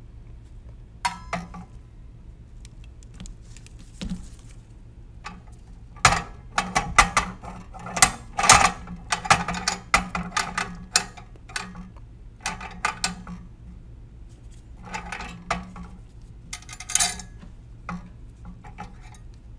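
Triple beam balance being worked by hand: a plastic cylinder set on the metal pan and the riders slid along the beams, giving an irregular string of clicks, clinks and scrapes.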